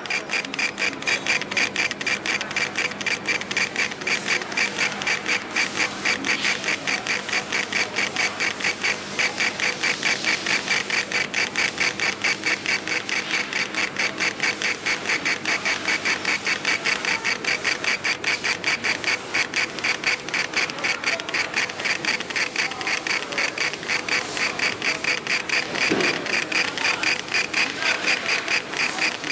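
Senfeng 100-watt laser engraver raster-engraving glass: the head's motors and belt drive whirr back and forth in a fast, even, pulsing rhythm.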